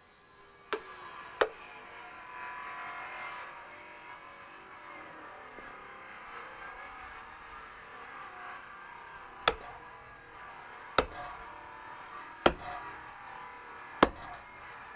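Axe chopping firewood on a chopping block: two sharp blows close together near the start, then four more at an even pace, about one and a half seconds apart, in the second half. A steady hum runs underneath.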